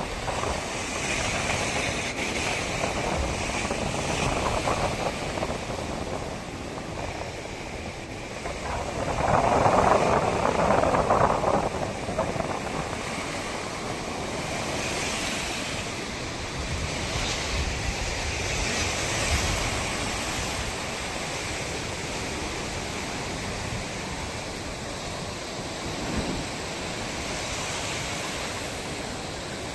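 Ocean surf washing onto the beach, with wind buffeting the microphone and a louder rush of a couple of seconds about ten seconds in.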